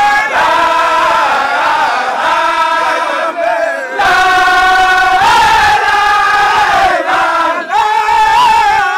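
A crowd of voices chanting in unison, with long held notes that bend slowly up and down. It grows louder and fuller about four seconds in.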